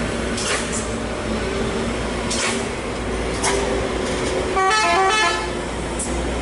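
Heavy diesel dump trucks running with a steady low drone as they pull, with a few short hisses. About four and a half seconds in, a vehicle horn sounds briefly, several tones at once, for under a second.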